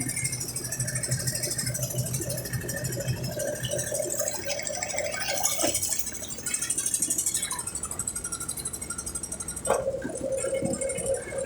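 Brastemp Ative 11 kg washing machine running: a steady motor hum with a wavering mid-pitched tone, light rattling, and two sharp knocks, one about halfway through and one near the end.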